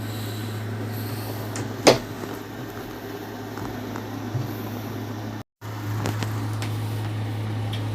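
Handling noise from assembling a desk: a single sharp knock about two seconds in and a lighter tick later, over a steady low hum. The sound cuts out briefly about five and a half seconds in.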